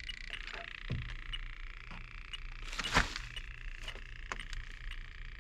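Electronic refrigerant leak detector ticking over a steady high hum as it is swept along a heat pump coil, checking for a small refrigerant leak. A single louder knock comes about three seconds in.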